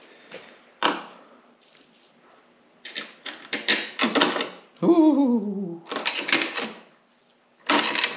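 Metal bolts and nuts clinking and rattling in the hand in clusters of sharp clicks while a bracket is set in place over drilled holes. About five seconds in, a short falling, wavering hum of a man's voice.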